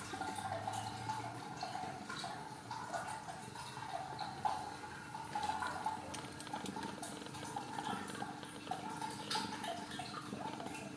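Newborn Ragdoll kittens suckling at their mother: many small wet clicks and smacks over soft, wavering squeaks.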